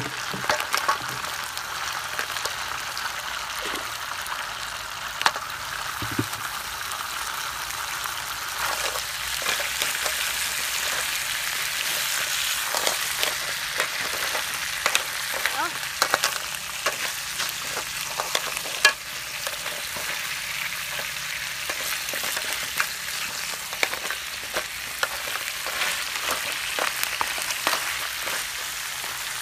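Clams and mussels frying in a hot enamel wok, a steady sizzle with frequent sharp clicks as a wooden spatula stirs the shells against each other and the pan. The sizzle swells for a stretch in the middle.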